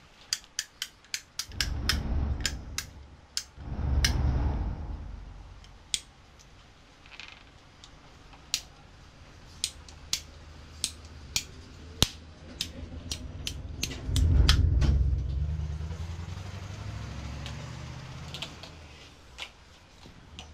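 Hand ratchet pipe cutter clicking as it is squeezed through a plastic pipe: sharp clicks, a quick run at first and then about one a second. Strong low rumbles swell up about two, four and fourteen seconds in.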